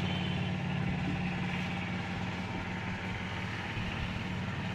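An air compressor's motor running with a steady, even hum, feeding air into a tractor tyre's inner tube to find a puncture.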